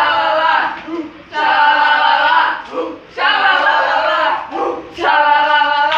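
Several young women chanting loudly together in short held phrases, four of them with brief pauses between.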